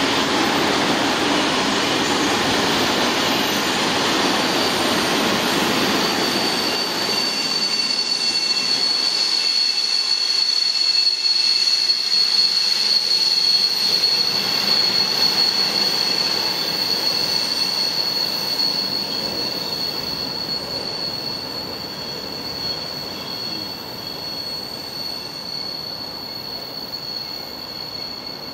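Freight train of covered sliding-wall wagons rolling past and drawing away, the wheel rumble fading. A steady high-pitched wheel squeal begins about six seconds in and keeps on as the train recedes.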